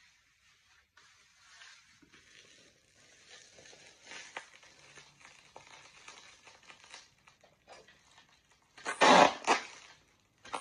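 Bubble wrap and plastic wrapping crinkling and rustling in the hands while a wrapped item is unwrapped, soft at first, with a short burst of loud crinkling about nine seconds in.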